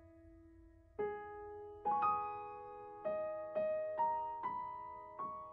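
Background piano music: single soft notes struck one after another, each ringing and fading, starting about a second in.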